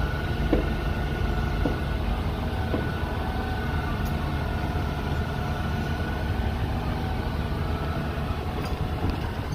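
Mobile crane's engine running steadily, a low rumble with a thin high whine over it, as it holds a roof truss.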